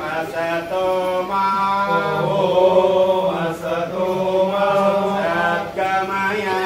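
A group of voices singing a prayer in unison, slow chant-like held notes that change pitch every second or so, over a steady low drone.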